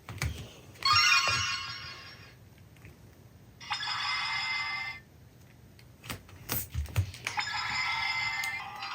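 Chiming electronic tones from the small built-in speaker of a Proplica Eternal Tiare toy wand, in three short bursts with clicks of its buttons being pressed in between; the third burst runs on into music near the end.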